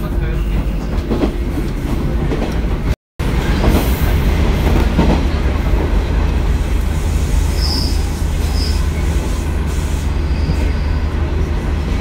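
JR Kyushu Seaside Liner train running, heard from inside the car: a steady low rumble of the moving car and wheels on the rails. It breaks off for a moment at a cut about three seconds in, and two short high squeaks come a little after the middle.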